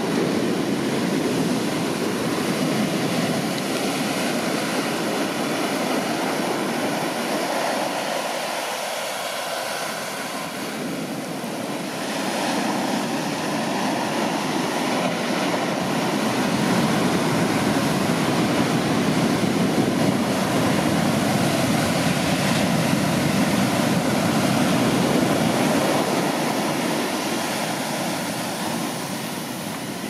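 Large shorebreak surf breaking and washing up the beach: a continuous rushing roar of whitewater that eases about a third of the way in and swells again shortly after.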